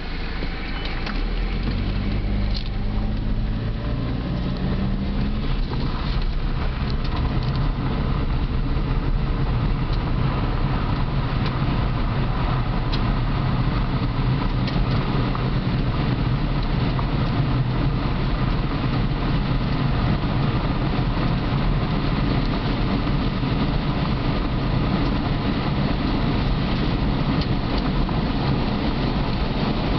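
Car pulling away, its engine note climbing for a few seconds, then running on with a steady low rumble of tyres on a gravel road, heard from inside the car.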